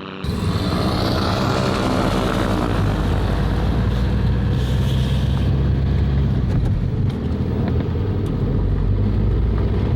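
An engine running loud and steady, its pitch dropping over the first few seconds, under heavy low rumble and wind noise.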